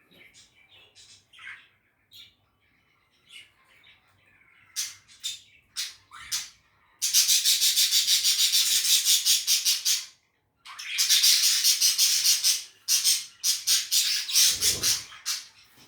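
Budgies making a few short chirps, then about halfway through breaking into long runs of rapid, harsh, scratchy pulses, with a short gap between the runs. Near the end the runs break up into separate scratchy notes.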